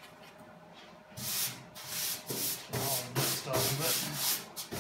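Plastic spreader scraping freshly mixed body filler across a steel car fender: a quick run of short strokes, about two a second, starting about a second in, as a skim coat is laid over the repaired panel.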